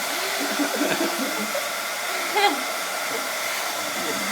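Handheld hair dryer blowing steadily, with a baby's happy vocal sounds over it and one brief louder squeal about two and a half seconds in.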